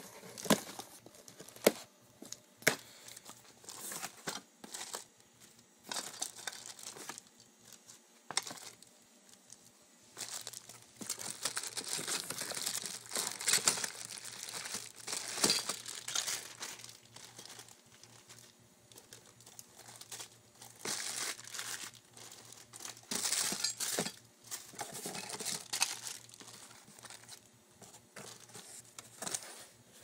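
A cardboard parts box being opened and plastic-wrapped parts handled. There are a few sharp clicks in the first three seconds, then long stretches of crinkling plastic and rustling cardboard.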